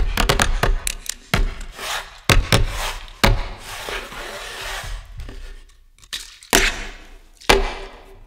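A quick rhythmic run of sharp clicks and knocks, thinning out after about a second into scattered hits. A hiss swells and fades in the middle, and two louder knocks come near the end.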